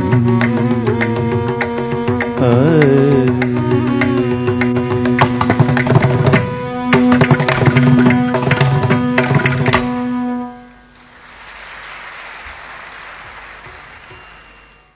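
Carnatic ensemble finishing a piece: held melodic notes over dense, accented drum strokes that stop together about ten and a half seconds in. Audience applause follows, quieter, fading near the end.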